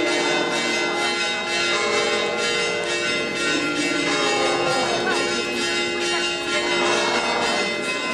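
Church bells ringing in a continuous peal, with a crowd talking underneath.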